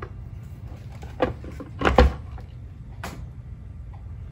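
A few knocks and clunks of the heavy statue being handled and worked onto its base, the loudest about two seconds in.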